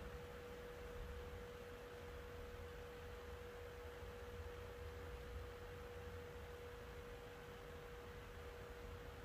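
A faint, steady single-pitched hum, held without change, over a low background rumble.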